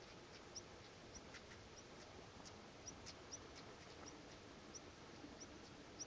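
Near silence, with a small bird giving short, high chirps about twice a second, irregularly spaced, and a few faint ticks.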